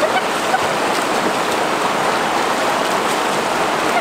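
Fast-flowing river rushing steadily over rocks and rapids, a constant even roar of water.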